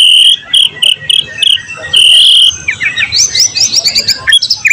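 White-rumped shama singing loudly: a string of shrill, held whistled notes, then, about three seconds in, a quick run of short falling notes.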